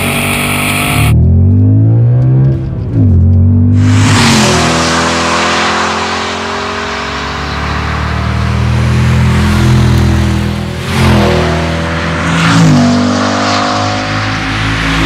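Audi S5 with an Akrapovic exhaust system being driven hard, the engine and exhaust note climbing in pitch under acceleration and dropping sharply at upshifts, about two and a half seconds in and again near eleven and thirteen seconds.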